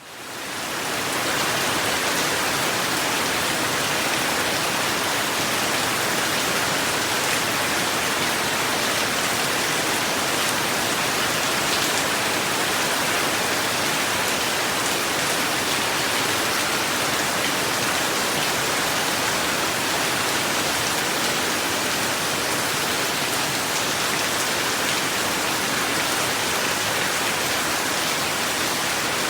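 Steady rain falling, fading in over about the first second and then holding at an even level.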